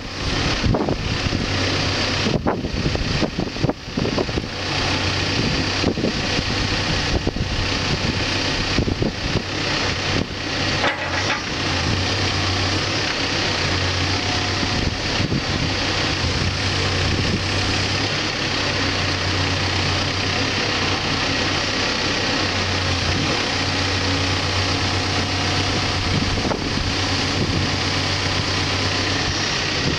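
Backhoe's diesel engine running steadily, with a few short knocks or clanks in the first dozen seconds.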